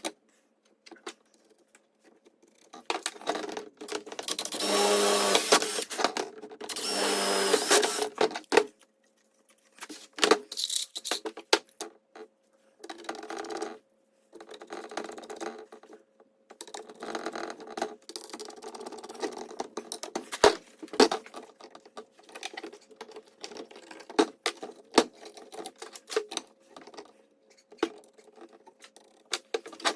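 A small electric power tool runs in two bursts of a few seconds each, then comes a stretch of irregular clicks, knocks and scraping as parts are handled.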